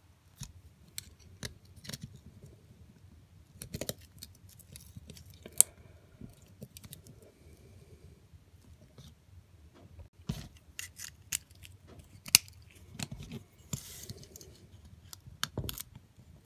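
Screwdriver prying the base off a Lesney Matchbox Ford Corsair die-cast car: scattered metallic clicks and scrapes of the blade against the metal body, with two sharper clicks, one about a third of the way in and one about three quarters in.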